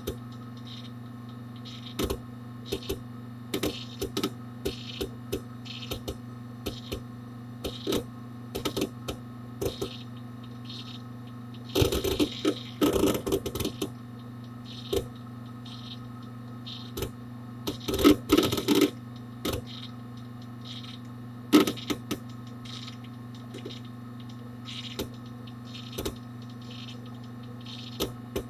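Hard disk drive inside a Dell Dimension 4700 desktop computer, recorded from inside the case, clicking and chattering irregularly with disk activity over a steady low hum. Dense bursts of clicks come about twelve and eighteen seconds in, and there is a single loud click a little after twenty-one seconds.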